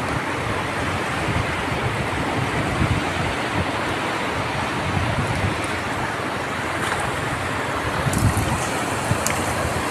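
Steady wind buffeting the microphone over the wash of the sea, with a few faint clicks near the end.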